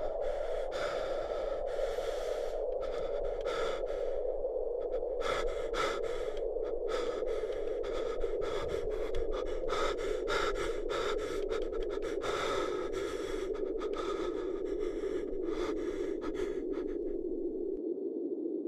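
A man struggling for breath: repeated labored gasps, irregular and a little more than one a second, over a steady rushing drone that slowly sinks in pitch.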